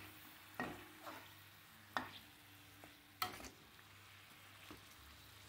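A steel slotted spoon clinking against an iron kadhai three times, with a few lighter taps, as gujiya are turned in hot oil. Under it, a faint sizzle of the gujiya frying on a low flame.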